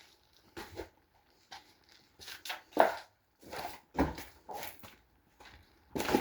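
Footsteps crunching and knocking on a floor strewn with debris, a short irregular crunch about once or twice a second.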